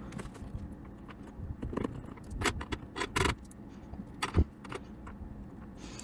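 Small lock pins being tipped out of a Medeco biaxial cam lock's core and handled onto a pin tray: a scatter of light metallic clicks and clinks, with a sharper knock about four and a half seconds in.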